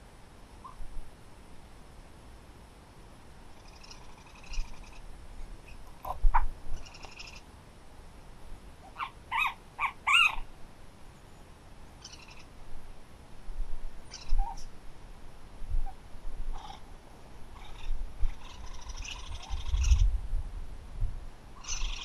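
Wild birds calling in short, scattered calls and chirps, with a few low thumps near the end.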